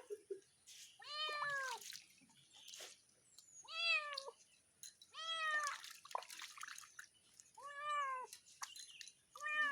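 A domestic cat meowing repeatedly while being bathed: five drawn-out meows, about one every one and a half to two seconds, each rising then falling in pitch. Small clicks and drips of water sound between them.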